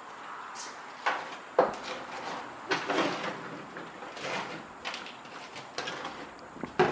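Irregular knocks, clunks and scraping from hand work inside a stripped car's cabin, about one every second.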